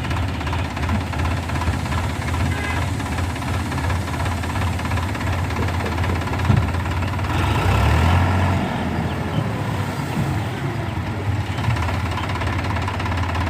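Sonalika RX 35 tractor engine running steadily, with one sharp knock about six and a half seconds in and a brief rise in level a second or so later.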